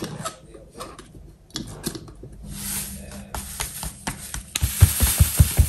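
Small metal clicks as the aluminium phin filters' press plates are set in place, then ground coffee poured from a foil bag into a filter, a crinkling, hissing rustle, with a quick run of dull taps near the end as the bag is knocked to shake out the grounds.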